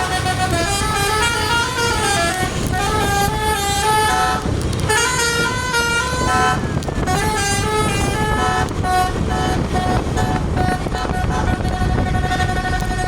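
Tour bus's 'basuri' telolet horn playing a drawn-out tune of stepped, held notes, with a short break partway through, over the bus's engine and road rumble.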